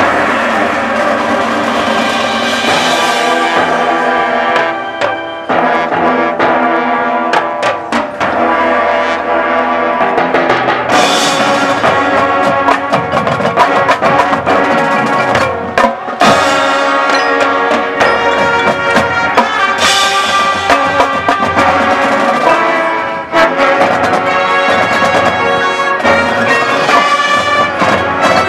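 High school marching band playing a field show: brass section with trumpets and trombones sounding sustained chords over marching percussion, with several short breaks and drum hits between phrases.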